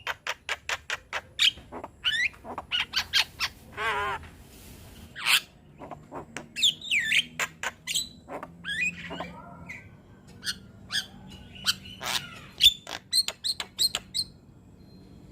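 Young Javan myna (jalak kebo) singing vigorously: a fast string of sharp clicks, chatter and whistled notes, with a wavering trill about four seconds in and swooping whistles later. The calls stop about a second before the end.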